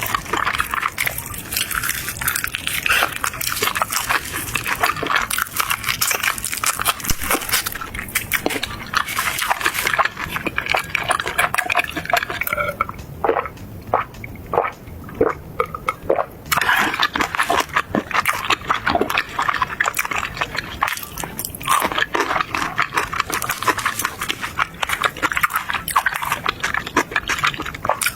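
Close-miked chewing and biting into crunchy fried food, a dense run of crackling crunches that thins briefly around the middle.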